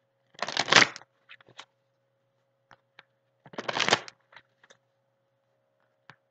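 A deck of oracle cards being shuffled by hand: two brief bursts of shuffling about three seconds apart, with a few small card clicks between them.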